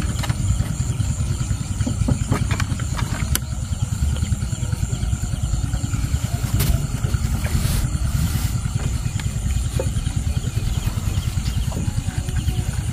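A small engine running steadily with a fast, low throb. Above it sits a thin, steady high whine, and a few light knocks come in the first half.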